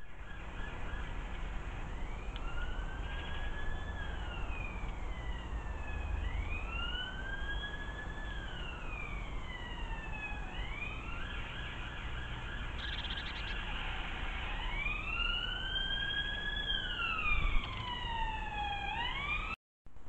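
Emergency vehicle siren in a slow wail, the pitch rising and falling about every four seconds, with overlapping wails near the end.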